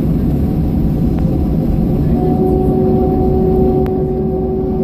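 Inside the cabin of a Boeing 737-800 taxiing: a steady low rumble from its CFM56-7B jet engines. About two seconds in, an engine whine of two steady tones comes in over the rumble.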